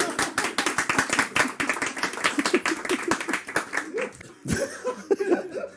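Rapid, uneven hand claps mixed with men laughing, thinning out about four and a half seconds in.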